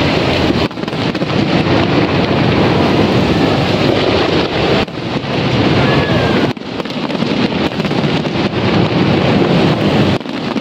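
Loud, steady rushing of wind buffeting the microphone, broken by a few brief dips.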